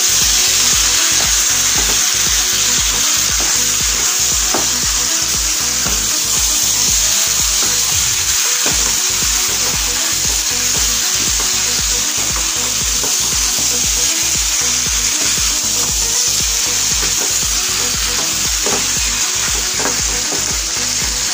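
Chicken pieces with onions and spices sizzling in hot oil in a nonstick kadai, stirred and turned with a spatula, with a few scrapes against the pan. The frying hiss stays steady throughout, over a regular low beat.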